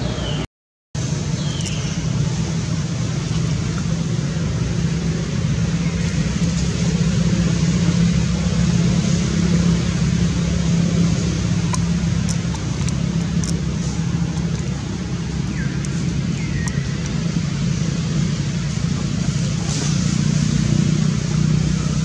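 Steady low drone of a running motor over an even hiss, cutting out briefly about half a second in, with a few faint high chirps.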